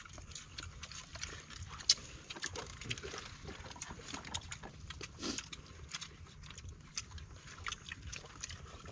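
People eating with their bare hands: chewing, lip-smacks and slurps, with scattered small clicks from sea urchin shells and fingers on rice.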